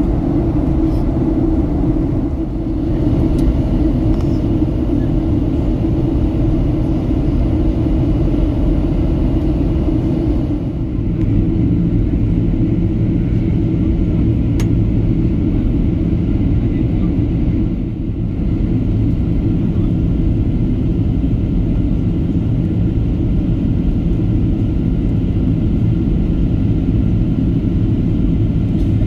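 Boeing 737-800 cabin noise during descent: the steady rumble of its CFM56 jet engines and the airflow. About ten seconds in, the sound shifts to a lower, steadier hum.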